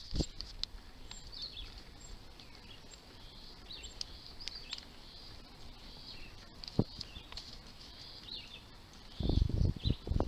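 Birds chirping irregularly in the roadside trees over a faint low rumble from the moving bicycle. Near the end, loud low buffeting on the hand-held microphone.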